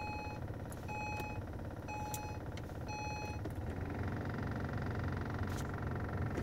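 Car's warning chime beeping about once a second, four times, then stopping about three and a half seconds in. Under it is the steady hum and whir of the running car and its AC blower fan, the fan making a loud noise on its low setting.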